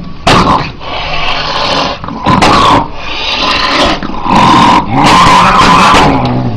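Domestic cat growling and yowling in a run of loud, harsh, drawn-out calls.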